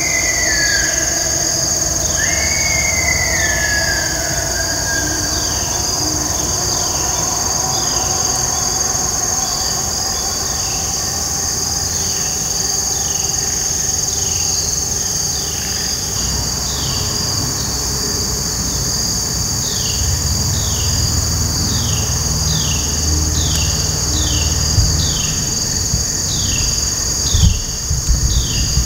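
Steady, high-pitched insect chorus of the crickets and katydids of an evening woods, with short falling chirps repeating about once or twice a second. Two longer falling whistled calls come in the first three seconds, and a low rumble and a single thump come near the end.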